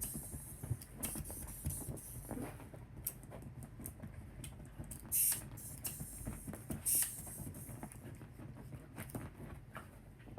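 Dachshund puppy at play: scattered light taps, scratches and rustles, with two louder short hissing bursts about five and seven seconds in.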